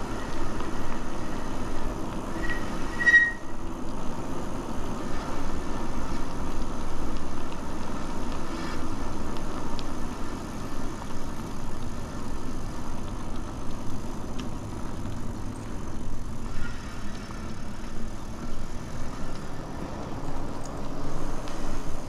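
Steady rush of wind on the microphone and tyre noise from an e-bike rolling along a paved path, with a brief high tone about three seconds in.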